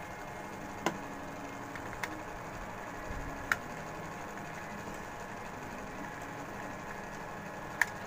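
Four light clicks and taps as wires with crimped fork terminals are handled at a circuit breaker and terminal block, the sharpest about three and a half seconds in, over a steady low background noise.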